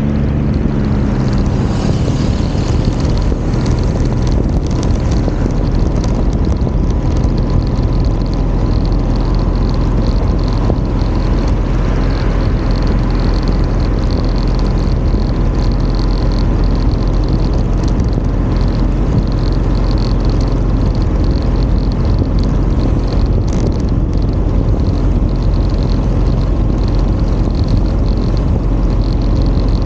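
Steady, loud wind and road rumble from a vehicle driving along a road, with its engine running underneath and an engine note heard plainly only in the first second or so. A faint high-pitched whine comes and goes in the second half.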